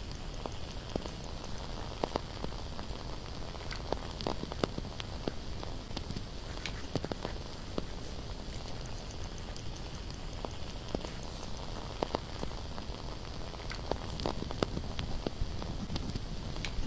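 Candle crackling: small irregular pops and ticks over a steady soft hiss.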